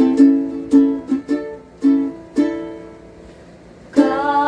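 Chords strummed on a small plucked string instrument as the instrumental intro to a children's song: about seven strums in the first two and a half seconds, each left to ring, then a short lull before the playing picks up again near the end.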